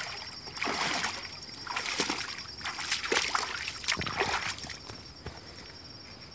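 Shallow lagoon water splashing and sloshing in irregular bursts as a person wades through it carrying a hand sieve, with water dripping off the sieve. The splashing dies down about five seconds in.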